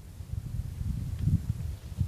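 Wind buffeting the microphone: a gusty, uneven low rumble that grows a little stronger after the first half-second.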